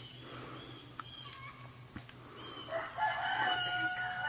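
A rooster crowing once, a long held call that starts a little under three seconds in, over faint background with a couple of light clicks.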